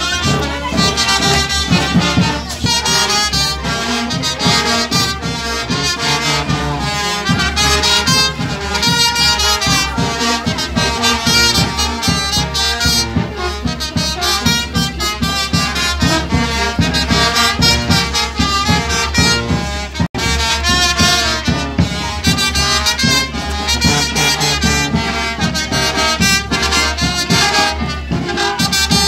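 Brass band music with trumpets and trombones playing continuously. It breaks off for an instant about twenty seconds in.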